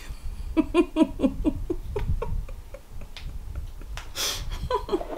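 A woman laughing: a quick run of short "ha" pulses, about four a second, that trails off after a couple of seconds, followed by a sharp breath in about four seconds in.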